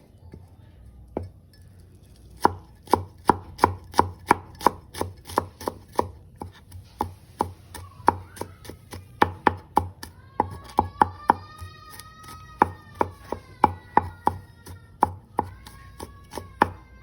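Knife chopping food on a cutting board in steady, even strokes, about three a second, starting about two seconds in.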